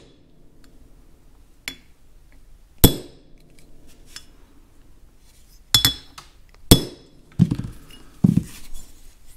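Ball-peen hammer tapping a punch to flatten the domed Welch plug in the cast carburetor throttle body, expanding it to seal the bushing bore. Four sharp metallic taps, each with a short ring, the first one faint. A couple of duller knocks come near the end.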